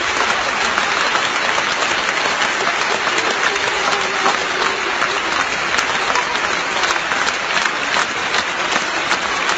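A theatre audience applauding steadily, the even clatter of many hands.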